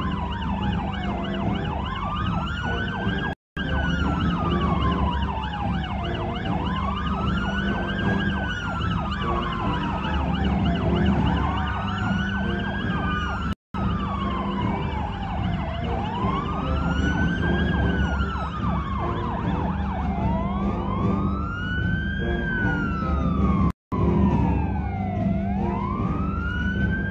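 Police siren wailing, a slow falling and rising sweep about every four and a half seconds, over a steady low rumble. The sound cuts out for a moment three times.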